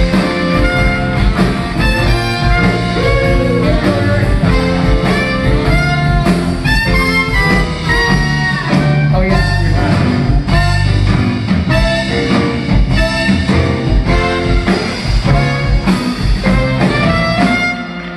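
Live band playing a tune with saxophones, electric guitar and drums, with a steady beat.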